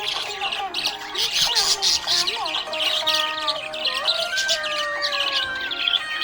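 Budgerigar chirping and chattering rapidly and without a break, with music underneath.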